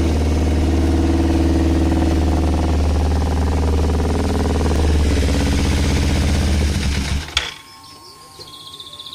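Motorcycle engine fitted with an aftermarket racing exhaust idling steadily, then shut off about seven seconds in, leaving only a faint steady tone.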